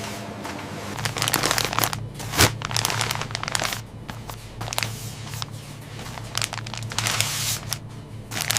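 Crinkling and rustling of packaging being handled, in irregular crackly strokes, over a steady low hum that starts about a second in.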